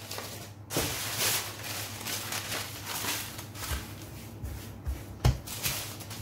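Sheets of baking paper rustling and crinkling as they are unfolded and smoothed flat on a worktop, with a soft knock about five seconds in.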